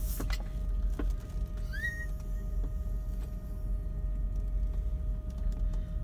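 Steady low hum of a car idling, heard from inside the cabin, with a few light clicks near the start and about a second in and a short rising chirp about two seconds in.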